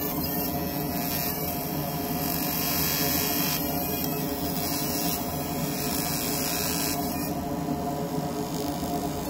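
Fiber laser engraver marking a metal handcuff, making many rapid passes per shape: a high hiss that shifts every second or two as it moves between shapes and drops away about seven seconds in, over a steady machine hum.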